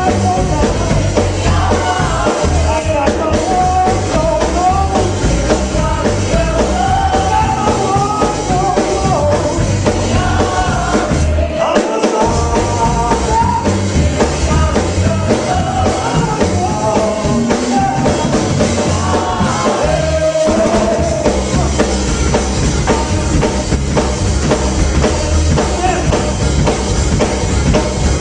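Church praise band playing live, voices singing over drums and bass guitar; the singing stops about three-quarters of the way through while the band plays on.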